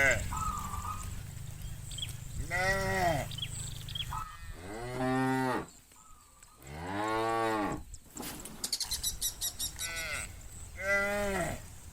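Cattle mooing: about five long, drawn-out moos from the herd, each rising and then falling in pitch, two of them overlapping near the end. A brief rapid ticking rattle sounds just after the middle.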